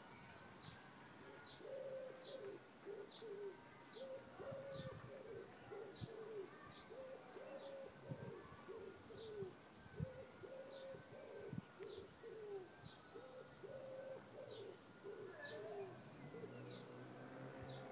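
Pigeons cooing in repeated runs of low calls, with a small bird chirping steadily about every second and a faint wavering high tone behind.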